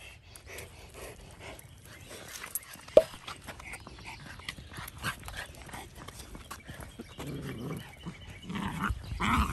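Two puppies playing while walking on leash, with small dog noises, scuffing, and a sharp click about three seconds in. The dog sounds grow louder near the end.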